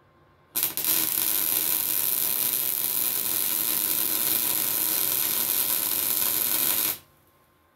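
Electric welding arc crackling steadily as a bead is run on a cracked exhaust pipe. It strikes suddenly a little over half a second in, holds an even sizzle for about six seconds, and cuts off sharply.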